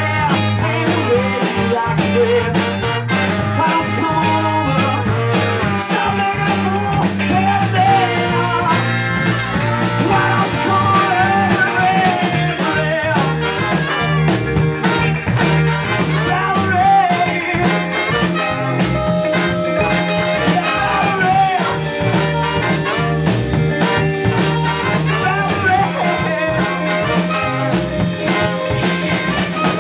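Live ska-punk band playing a song: sung vocals over guitar, bass and a steady beat.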